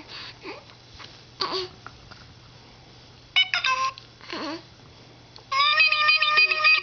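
An infant cooing softly a few times, and a handheld electronic baby toy sounding flat electronic tones: a quick run of stepped notes about three and a half seconds in, then a louder held tone near the end, the loudest sound.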